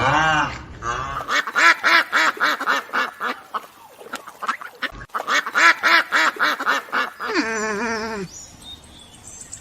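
Ducks quacking in a fast run of short, repeated calls, about four or five a second. Near the end a single longer call slides down in pitch.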